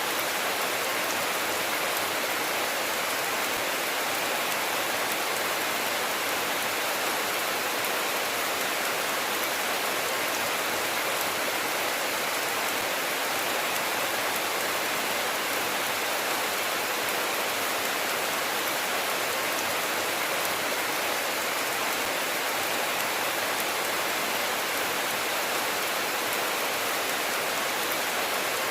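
Steady rainfall: an even, unbroken hiss of rain, with no thunder.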